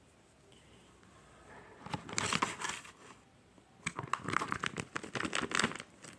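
Crinkling, crackling plastic handled in two bouts, starting about two seconds in and again about four seconds in. It fits a tape squishy being squeezed and handled.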